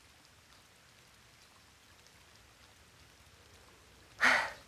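Faint steady hiss with scattered soft ticks, then about four seconds in a person's short, breathy exhale, like a sigh.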